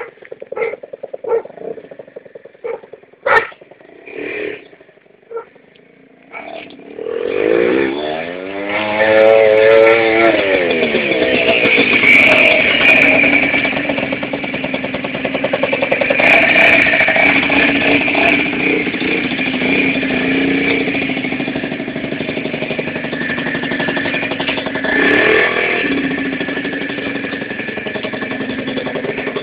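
Keeway Hurricane 50 cc two-stroke scooter engine pulling away with a rising, then falling pitch about seven seconds in, then running steadily under way. Before it, a few short sharp knocks over near quiet.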